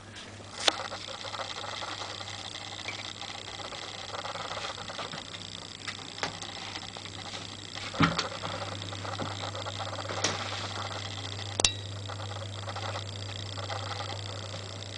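Steady low hum and hiss of a small room, broken by a few sharp clicks and knocks; the hum grows louder after a knock about eight seconds in.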